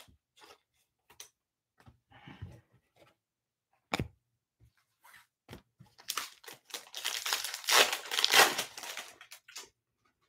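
Foil wrapper of a Bowman Chrome trading-card pack crinkling and tearing open for about three and a half seconds, the loudest sound. Before it come light clicks and one sharp knock as cards are handled.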